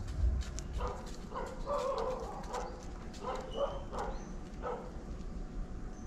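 Kitten mewing: a quick series of short, insistent calls starting about a second in.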